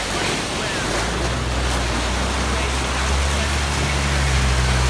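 Jeep Wrangler Rubicon engine running steadily under load as it crawls through a flooded mud rut, with mud and water splashing around the tyres. The engine grows a little louder as the Jeep comes closer.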